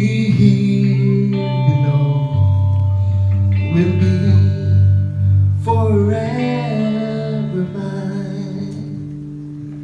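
Live worship band playing: electric guitar and bass guitar over sustained chords, with a man singing in places.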